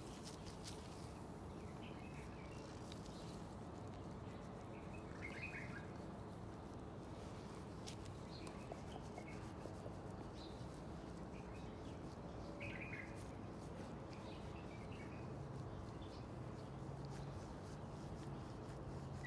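Birds chirping now and then, a short chirp every two or three seconds, over a faint steady hum.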